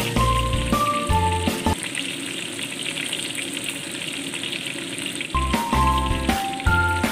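Chopped garlic frying in hot oil in a steel wok, a steady sizzle as it is stirred. Background music with a melody and bass plays over it at the start, drops out for about three and a half seconds, and comes back near the end.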